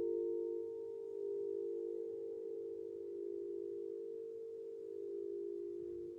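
Crystal singing bowls ringing in a long, steady hum of a few close pitches that waver slowly against each other.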